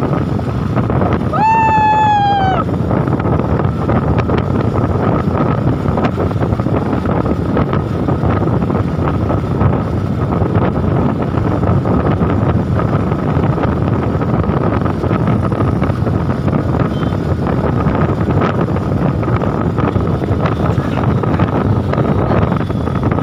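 Wind rushing over the microphone of a camera on a moving motorcycle, over the steady running noise of the bike on tarmac, with a thin constant whine. A short pitched tone falling in pitch comes about a second and a half in and lasts about a second.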